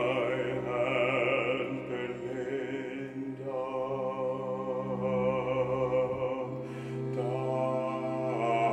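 Operatic baritone voice singing long held notes with vibrato, over a sustained cello and violin accompaniment.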